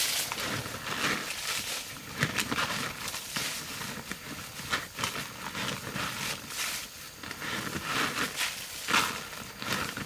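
Irregular rustling and crinkling of a woven plastic sack as gloved hands reach in and scoop from it, among dry grass.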